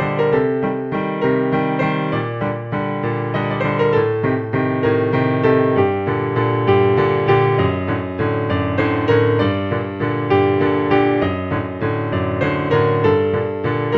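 Background music: a piano piece with a steady flow of notes.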